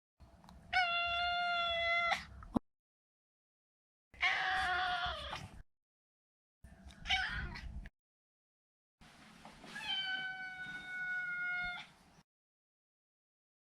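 Maine Coon cat meowing four times, with complete silence between the calls. The first and last meows are long and held at a nearly level pitch. The second falls in pitch at the end, and the third is short.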